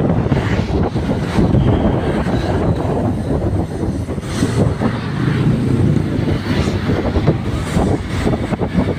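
Wind buffeting the microphone over steady engine and road noise from a motorcycle moving through traffic.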